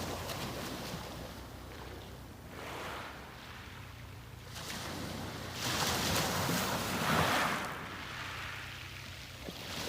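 Sea waves breaking and washing up the beach, coming in surges a few seconds apart, with the loudest wave breaking about halfway through.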